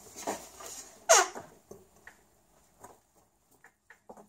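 Handling noise from the opened soldering station's case and cables: a short scrape falling in pitch about a second in, then scattered light clicks and taps.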